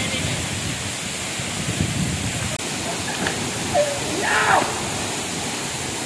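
Steady rushing of a waterfall pouring onto rock and into a plunge pool, with a few brief distant voices over it.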